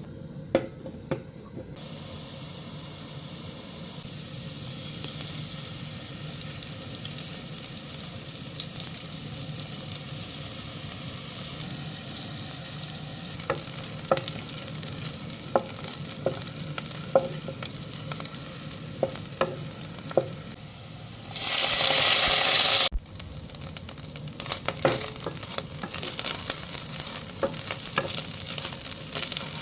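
Food frying in a pan with a steady sizzle while it is stirred, the spoon clicking against the pan now and then. A loud hiss lasts about a second and a half about two-thirds of the way through and cuts off abruptly.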